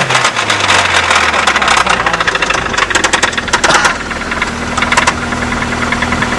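1994 Saturn SC2's 1.9-litre four-cylinder engine dropping back from a rev to idle, with a rapid, loud knocking running through it: a bad engine knock.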